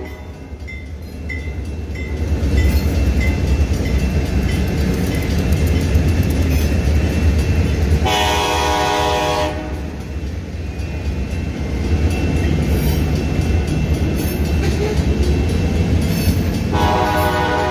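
Georgia Northeastern Railroad freight train passing close by: a steady low rumble of diesel locomotives and rolling freight cars on the rails. A locomotive air horn sounds one blast of about a second and a half about eight seconds in, and starts another near the end.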